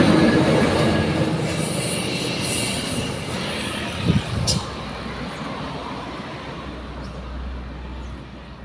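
A heavy truck driving past on the road, loud at first and fading steadily as it moves away, with a brief sharper noise about four seconds in.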